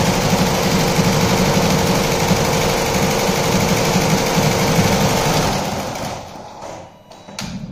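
Zing multi-head computerized embroidery machine stitching at speed: a rapid, even needle clatter over a steady motor hum. About six seconds in it dies away almost to nothing, with a few sharp clicks near the end.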